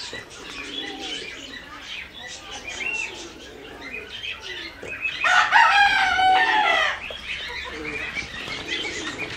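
Small caged birds chirping steadily, with a rooster crowing once for about two seconds past the middle, the loudest sound here.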